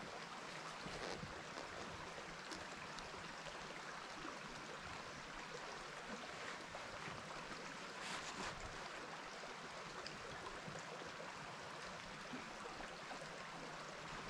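Faint steady background hiss, with a couple of faint soft clicks about eight seconds in.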